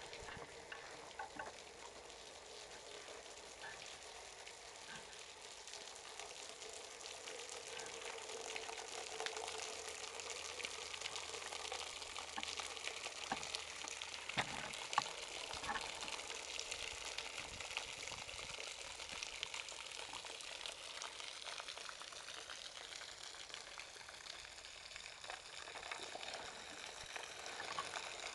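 Water leaking from the expansion joints of the large Tajo–Segura transfer pipes, dripping and spattering onto the ground below as a steady crackling hiss full of fine ticks. The hiss gets louder after the first several seconds.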